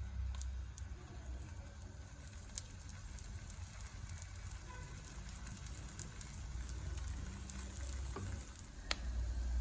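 Pancake batter sizzling in a hot pan: a faint crackle with scattered small pops over a low steady hum, and one sharper click near the end.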